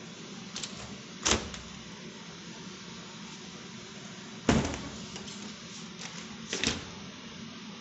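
A few sharp knocks, about three clear ones, the loudest about halfway through, over a low steady room hum.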